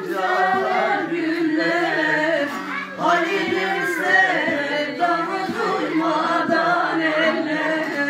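Several voices singing a Turkish folk song (türkü) together.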